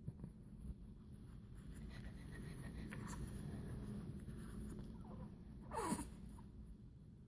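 A baby sneezes once about six seconds in: a short, sharp sneeze whose pitch drops quickly. Before it there is faint rustling.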